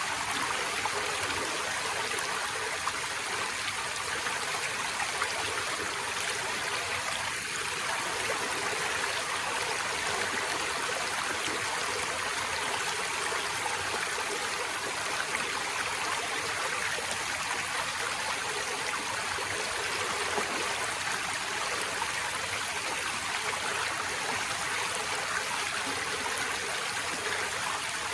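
Forest stream flowing and trickling steadily, an even rush of water.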